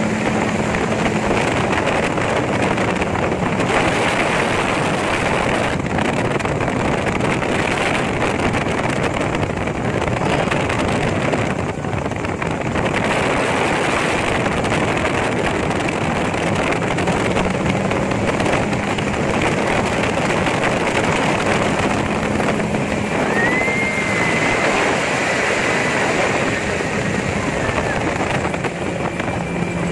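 Open-cockpit gyrocopter in flight: a steady rush of wind over the microphone mixed with the drone of the engine and propeller, with a faint high whistling tone about three-quarters of the way through.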